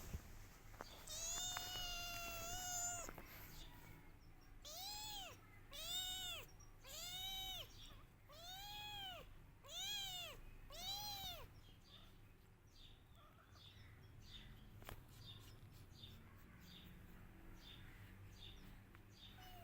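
Kitten meowing, crying for its mother: one long steady call, then six rising-and-falling meows about a second apart, with only faint sound after about twelve seconds in.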